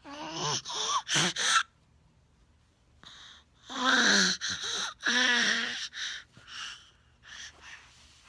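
A person making funny vocal noises: breathy gasps and short pitched squeals in bursts, three quick ones at the start and two longer ones in the middle, tapering to softer short sounds near the end.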